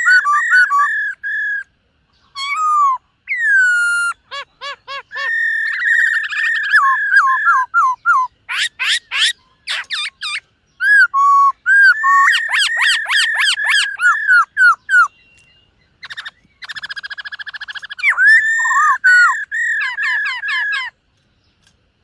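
Black-throated laughingthrush singing loud, varied whistled phrases, with fast runs of repeated slurred notes, broken by short pauses.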